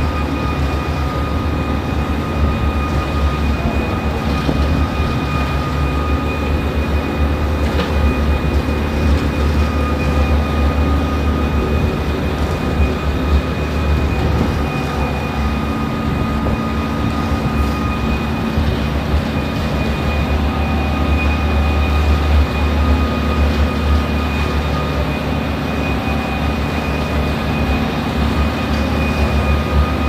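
Trailer concrete pump and the transit mixer truck feeding its hopper, running steadily: a deep diesel rumble with a thin, steady whine above it.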